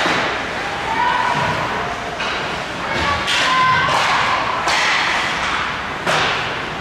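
Ice hockey play in a rink: several sharp thuds and knocks of puck, sticks and players against the boards, over a steady scraping hiss of skates on the ice, with faint shouts.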